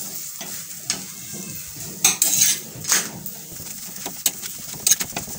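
Steel spatula scraping and knocking on an iron tawa as an oiled paratha is pressed down and flipped, in a string of irregular strokes, over faint sizzling of the oil.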